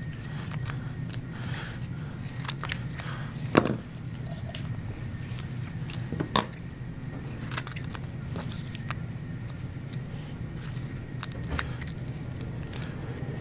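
Scissors snipping adhesive strips in half: a scattering of short, sharp snips and clicks, two of them louder, about three and a half and six seconds in, over a steady low hum.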